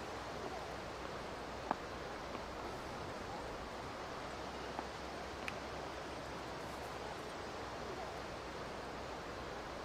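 Steady hiss-like background noise with a few faint clicks.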